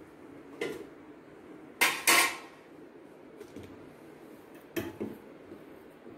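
Steel kitchen utensils clinking and clattering: a short knock, then a louder pair of clatters about two seconds in, and two smaller knocks near the end.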